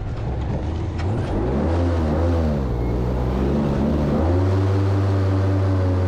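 Airboat engine and propeller running under way, the engine pitch rising and falling for a couple of seconds, then settling to a steady, slightly louder drone about four seconds in.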